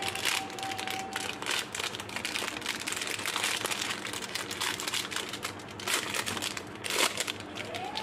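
Crinkling and crackling of a foil-lined plastic candy wrapper as it is twisted open and peeled off a coconut candy ball. There is a sharper crackle about seven seconds in.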